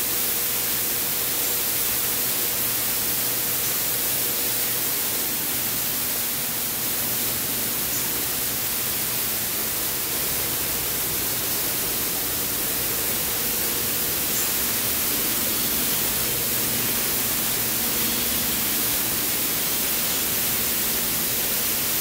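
A steady, even hiss with a faint low hum beneath it, unchanging throughout.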